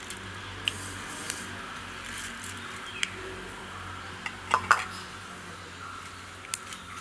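Mustard and fenugreek seeds frying in hot oil for a tempering: a steady sizzle with scattered sharp pops as the mustard seeds start to splutter, the loudest pops about four and a half seconds in.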